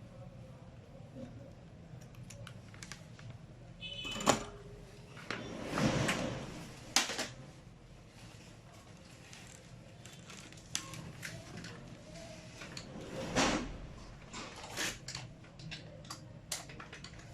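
Small clicks, taps and scrapes of tools and the opened laptop charger being handled while its output cable is desoldered from the circuit board, with a few louder knocks and scrapes, the sharpest about seven seconds in. A low steady hum runs underneath.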